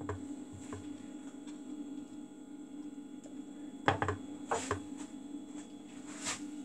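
Kitchen knife chopping red pepper on a chopping board: a few irregular sharp knocks, the loudest about four seconds in, over a steady low hum.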